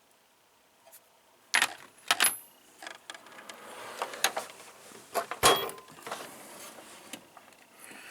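Metal tool-chest drawers being shut and pulled open, the drawer slides rattling and the metal tools inside clinking, with several sharp clanks.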